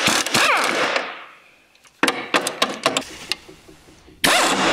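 Pneumatic impact wrench undoing a 16 mm transmission mount bolt, in bursts: a loud run at the start that winds down within the first second and a half, a stretch of rattling hammer blows about two seconds in, and another loud burst near the end.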